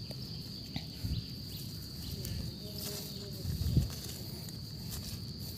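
Insects droning steadily on one high pitch, over the scrape and rustle of hands digging in dry forest soil and leaf litter, with a dull thump a little under four seconds in.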